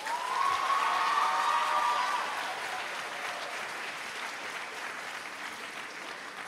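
An auditorium audience applauding, loudest in the first two seconds and slowly fading. A long, high cheer rises over the clapping at the start.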